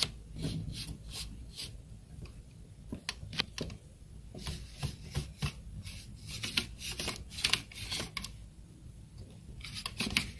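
Dot matrix printer's print head carriage pushed back and forth by hand along its guide shaft, its belt and drive giving irregular rasping scrapes and clicks. The carriage runs a bit rough, which the technician takes as a sign it needs oil.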